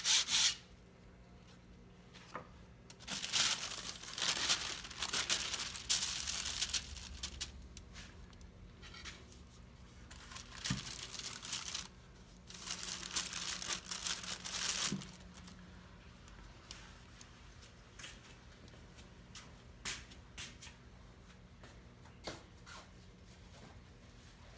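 Hand sanding on a wooden keel stops just after the start. Then come two stretches of plastic sheeting crinkling and rustling as the hull is pressed and moved on it, followed by scattered light clicks and taps.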